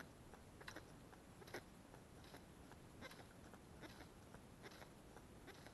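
Near silence, with faint, irregular ticks a few times a second: small ripples lapping at water level.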